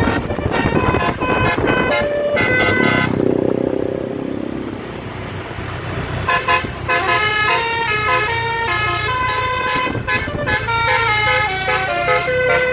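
A bus's basuri telolet air horn playing quick melodic tunes of stepping notes. It breaks off about three seconds in, leaving only vehicle noise, and plays again from about six seconds on.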